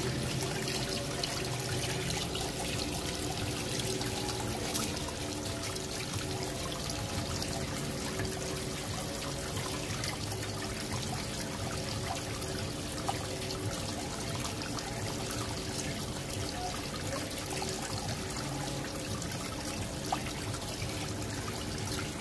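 Water pouring steadily from a water tank's drain pipe and splashing onto a concrete floor as the tank empties through its opened bottom valve.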